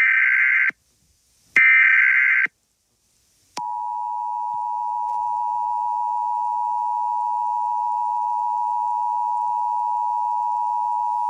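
Emergency Alert System tones: two short buzzy digital data bursts of the SAME header about a second apart, then, after a gap of about a second, the steady two-tone attention signal starts and holds.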